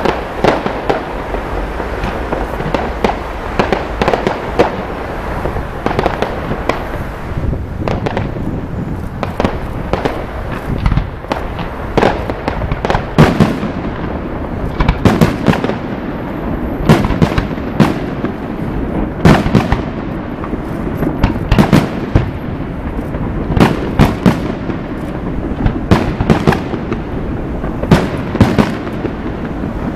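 Aerial fireworks display: shells bursting in a rapid series of bangs that come thicker and louder about halfway through.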